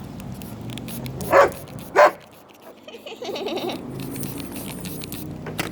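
A pet dog barking twice, about half a second apart, at the spray bottle of water she hates being squirted with.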